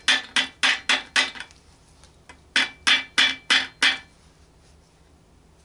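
Wrench clinking sharply on a nut at the oil pump of a Continental Z129 tractor engine as it is turned in short strokes: a run of about five ringing metallic clicks, roughly three a second, a pause, then another run of about five.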